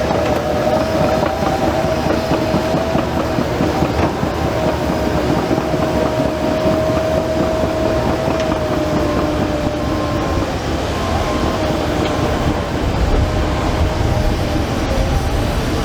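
Develon DD130 crawler bulldozer working: steel tracks clanking and rattling over a running diesel engine, with a steady whine that drifts slightly in pitch. A deeper rumble grows in the last few seconds.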